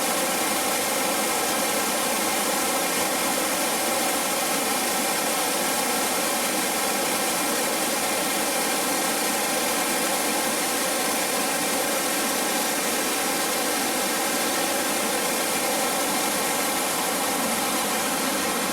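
Waterfall water rushing: a steady, unbroken roar of falling water.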